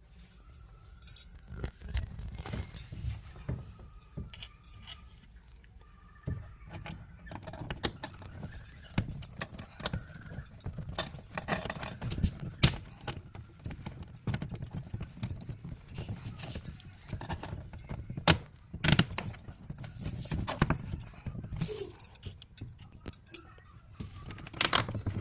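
Irregular clicks, knocks and light rattling of IKEA dresser parts being fitted and pressed into place by hand, with a few louder knocks near the end.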